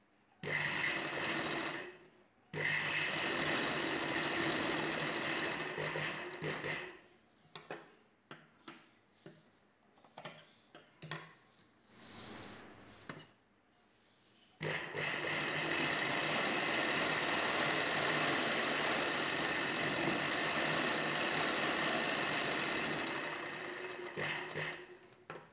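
Domestic sewing machine stitching in runs: a short burst at the start, a run of about four seconds, then a pause of several seconds filled with small clicks and fabric rustling, then a long steady run of about nine seconds that winds down near the end. It is sewing lace trim onto a blouse neckline.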